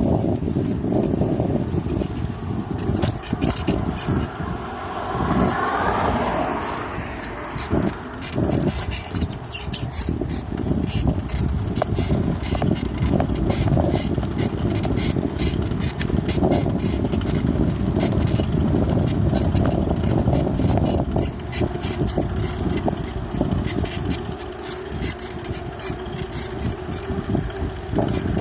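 A vehicle running with heavy low rumbling and frequent irregular clunks and knocks throughout. A rising whine comes in about five seconds in.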